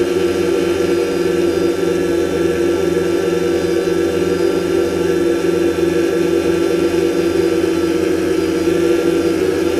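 DJI Phantom quadcopter's electric motors and propellers whirring steadily in flight, a loud even whine that holds one pitch, heard close up through the camera carried on the drone.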